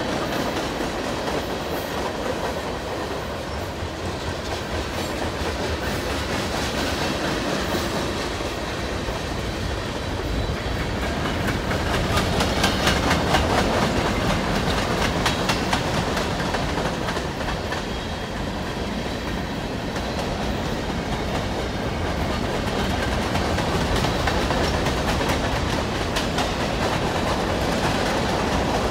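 Freight cars of a long mixed manifest train rolling past at speed: a steady rumble of steel wheels on rail with a rapid clickety-clack over the rail joints, loudest about halfway through.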